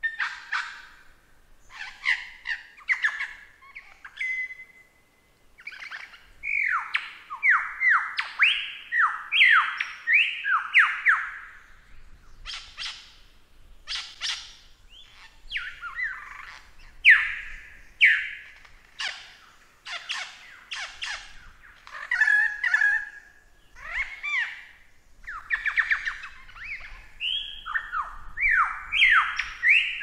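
Lyrebird singing: a varied, continuous run of loud whistled notes, many sliding quickly downward in rapid series, broken up by sharp clicks and a few short held tones.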